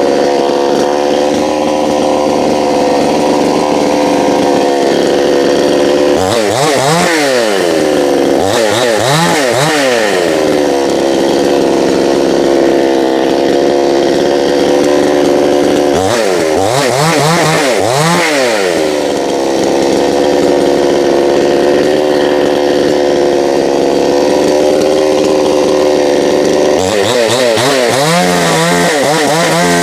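Petrol chainsaw running at high revs while cutting up a fallen tree limb. Three times, its engine note drops and climbs back up, twice in quick succession each time, as the throttle is let off and squeezed again.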